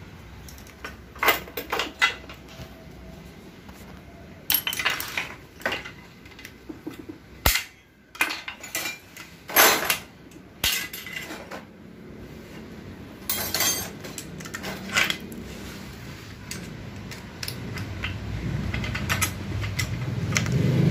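Steel clutch parts and tools clinking and scraping against each other and the aluminium case of a Toyota Harrier automatic transmission as the clutch pack is worked loose and lifted out by hand, in irregular sharp clinks and knocks.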